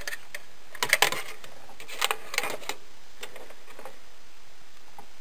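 A few light clicks and taps, about a second in and again around two to two and a half seconds in, from a circuit board being handled and set on the metal frame of a preheater. A steady hiss runs underneath.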